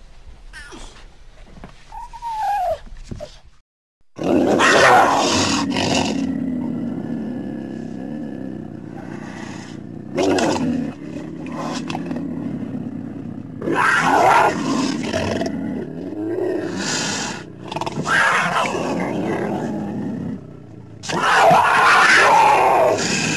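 Troodon dinosaur sound effects: after a few quieter calls and a brief silence about four seconds in, a string of loud roars and shrieking calls with gliding pitch follows, one after another.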